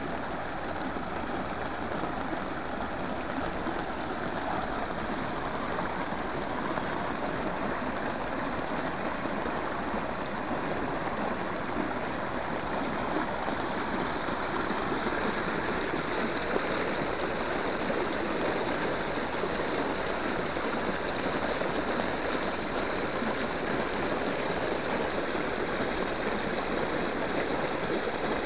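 Rainwater rushing steadily down a narrow concrete drainage channel, mixed with heavy rain falling on standing water.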